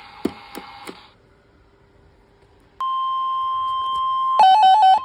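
Weather radio alert tone: a steady electronic tone near 1 kHz comes on about three seconds in. Near the end it turns into a louder beeping that flips quickly between two pitches, the alarm sounding ahead of a new severe thunderstorm warning. Before the tone there is faint radio static with a few clicks.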